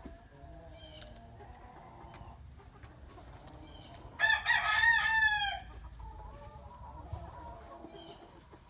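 A loud, drawn-out fowl call about four seconds in, lasting over a second and falling in pitch at the end. Softer, quieter bird calls come before and after it.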